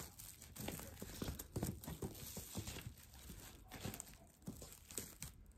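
Clear plastic cling film crinkling and rustling in small irregular crackles as hands fold it over the edges of a printed photo on paper and press it down to seal it.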